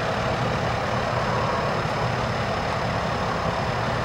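Steady engine noise from idling heavy vehicles over a constant hiss, with no change.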